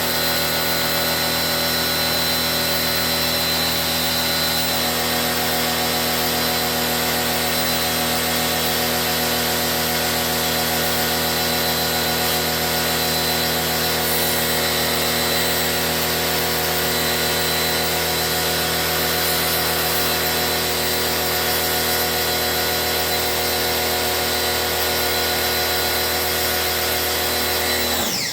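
An electric motor running steadily at constant speed with a steady whine. Right at the end its pitch falls and the sound dips as it slows.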